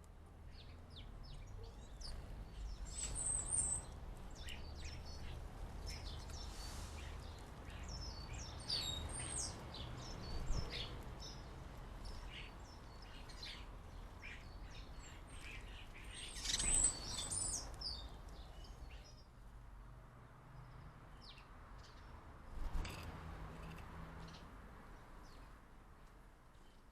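Small garden birds at a feeder chirping and twittering in bursts of short high calls, over a low steady rumble, with a few louder moments where the calls bunch up.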